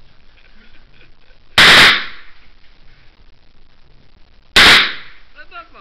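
Two loud gunshots from a handheld gun, about three seconds apart, each followed by a short ringing tail.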